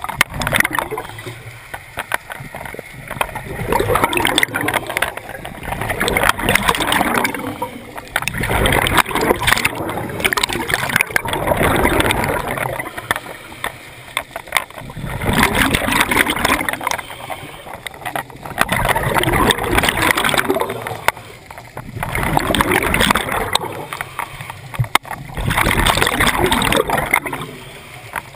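Scuba regulator breathing underwater: the exhaled air bubbles out in a gurgling rush about every three to four seconds, with quieter pauses between breaths.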